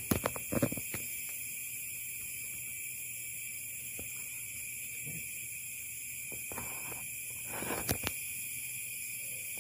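Steady high-pitched chorus of night insects, with a few sharp knocks and rustles at the start and again about 8 seconds in.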